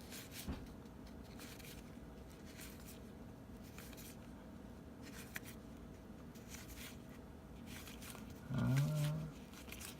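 Baseball cards being handled and flipped through by hand: faint, scattered slides and taps of card stock. A short murmured voice near the end.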